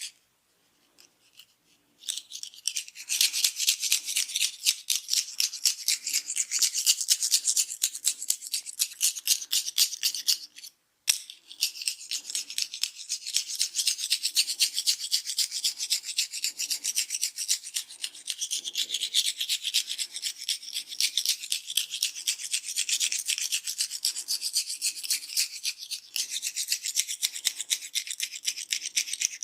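Fingers rapidly rubbing and scratching through hair on a scalp in a head massage: a fast, even, crackly rustle of many strokes a second. It starts about two seconds in and breaks off briefly around eleven seconds.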